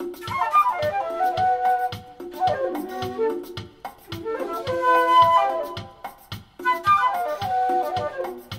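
Flute playing a melody through a Zoom 505-II effects pedal, its harmonizer adding parallel tones and reverb. A steady low beat of a little over two a second runs underneath.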